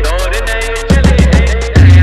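Electronic dance remix music with a heavy, sustained sub-bass and fast, regular hi-hat ticks; a loud bass hit comes back in about a second in.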